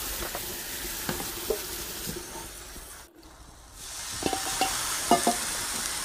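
Tap water running onto boiled pork pieces in a plastic colander in a sink, with a few knocks and rattles as the colander is handled. The water sound drops out briefly about three seconds in, then the steady rush returns.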